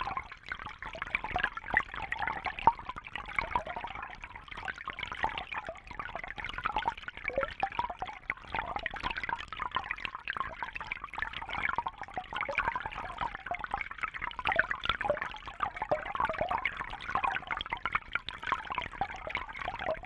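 Underwater fountain: water bubbling and gurgling continuously, a dense patter of small bubbly blips with no pause.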